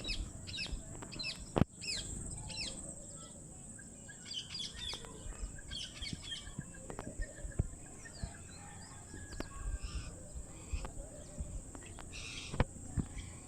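Indian ringneck parrots chirping in quick clusters of short, high, downward-sliding calls. A few sharp knocks stand out, the loudest about a second and a half in and another near the end, over a steady high-pitched whine.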